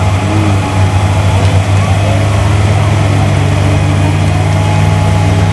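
Competition 4x4's engine running loud and steady as the truck winches itself through deep mud, its note thickening about halfway through.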